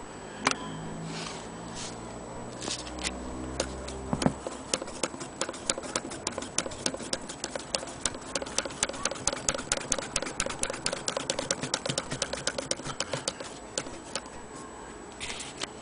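Antique Willcox & Gibbs chain-stitch sewing machine stitching through several layers of denim: a fast, even clicking of the needle mechanism that starts a few seconds in and stops near the end. Before it starts there are a few scattered knocks and handling sounds.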